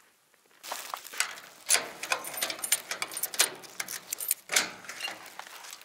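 A bunch of keys jangling and clinking at the cylinder lock of a corrugated-metal gate, starting about half a second in, with several sharper metallic clicks and clunks of the key, lock and handle.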